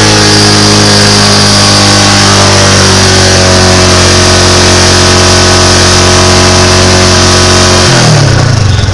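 Honda Supra X125's single-cylinder four-stroke engine running at raised revs, heard right at its muffler, the pitch sagging a little. About eight seconds in the revs drop sharply to an uneven idle. The engine has just had its combustion chamber cleaned of carbon and is burning off the residue.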